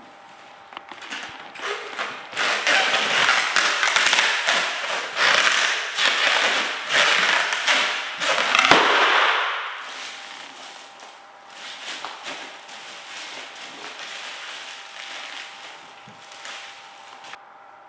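Mylar foil letter balloon crinkling and crackling loudly under stomping feet in socks. About nine seconds in it gives a sharp crack and a rush of air as the foil splits, followed by quieter crinkling of the flattened foil.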